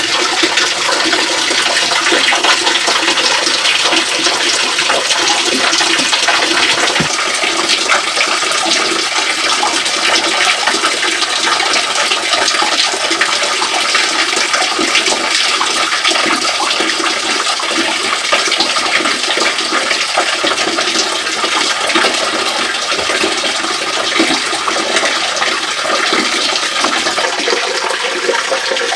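Small waterfall splashing into its plunge pool: a steady, dense rush of falling water.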